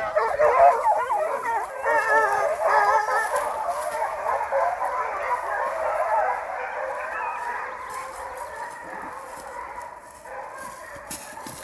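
Hunting hounds bawling and howling on the fresh track of deer just after being turned loose, several voices overlapping and growing steadily fainter as they run off.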